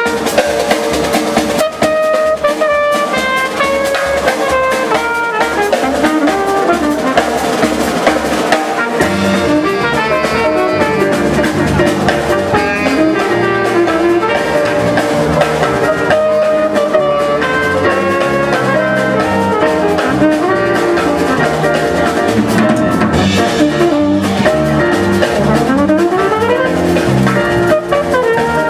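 Live jazz band playing a samba: trumpet and saxophone carry the melody over a drum kit's samba beat, and a bass line comes in about nine seconds in.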